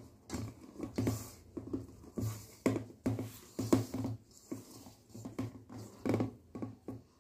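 A hand tossing and rubbing blanched cauliflower florets in a dry coating of cornflour, flour and spices in a steel bowl, in irregular scraping, rustling strokes about once or twice a second.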